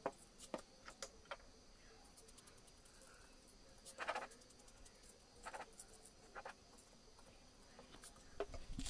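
Faint patter of black sand sprinkled from a small container onto glue-coated foam. It comes in a few short bursts, the strongest about four seconds in, with scattered light clicks near the start.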